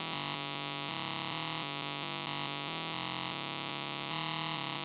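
Simulated piezo buzzer in a Tinkercad Arduino circuit sounding a steady buzzing hum. It is driven by a very low PWM value from the potentiometer, the serial monitor reading 1.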